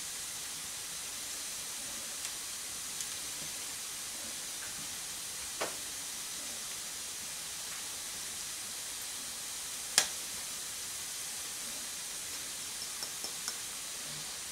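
Wood fire burning in an open stone fireplace: a steady hiss with a few faint crackles and one sharp pop about ten seconds in.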